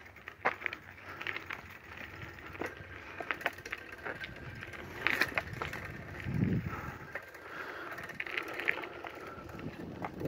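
Footsteps crunching and crackling over dry leaves and cut brush, an uneven run of small snaps and rustles.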